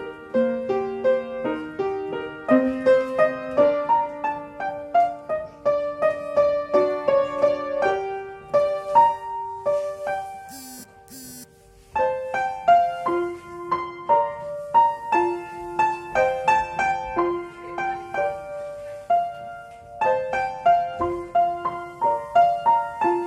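Piano accompaniment for a ballet barre exercise: a steady, even-metred run of notes. The playing pauses for about two seconds partway through, then starts again.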